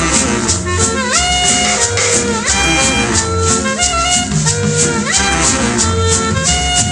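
Cumbia instrumental music: a brass-like lead plays held notes with repeated upward scoops over a pulsing bass and a steady shaker rhythm.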